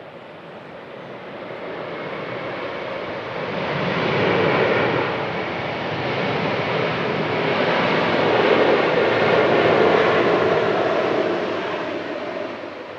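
Jet airliner passing close by, its engine noise swelling to a loud peak in the middle and fading toward the end.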